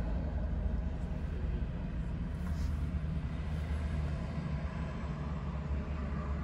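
Chevrolet's engine idling, a steady low rumble heard inside the cabin.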